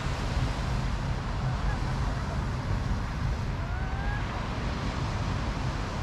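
Wind buffeting the microphone over the wash of surf on the beach, a steady rumbling noise. A faint, brief rising tone sounds about four seconds in.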